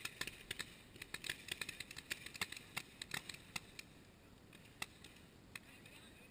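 Paintball markers firing, a quick irregular string of sharp pops that is thick for the first few seconds and then thins to a couple of single shots.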